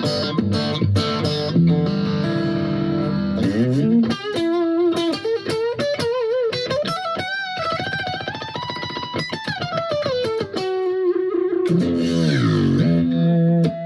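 Electric guitar (a Strat) played through a compressor pedal into a slightly overdriven amp: long sustained notes, bent and wavered, with a deep downward pitch dip near the end.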